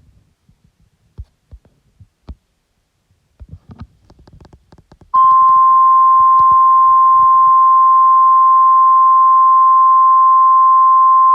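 A few faint low clicks and thumps, then about five seconds in a single loud, steady tone near 1 kHz starts over a hiss of radio noise. It is the 1050 Hz warning alarm tone of NOAA Weather Radio, signalling that a warning is about to be read, here a severe thunderstorm warning.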